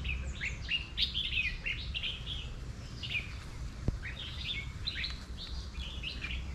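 Small birds chirping busily: many short, high chirps that slide downward, often several in quick succession. There is a low rumble underneath, and one soft thump about four seconds in.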